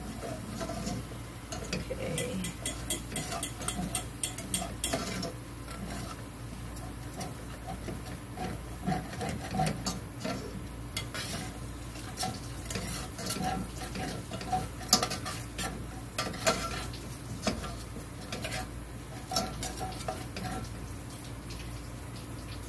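Wire whisk stirring and scraping in a stainless steel skillet, whisking milk into a flour-and-fat roux for gravy and working the browned bits off the pan bottom. It makes rapid, irregular metal clicks and scrapes.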